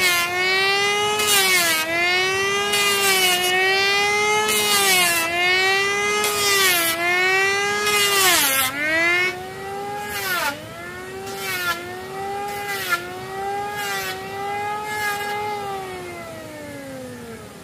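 Handheld electric power tool whining at speed, its pitch dipping about every second and a half as it bites into the wood, each dip with a burst of cutting noise. Near the end it is switched off and winds down, the whine falling in pitch as it fades.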